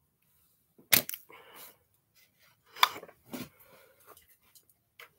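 Two sharp clacks about two seconds apart, a softer knock, and light rustling as a small toy car is handled and set down on a wooden tabletop.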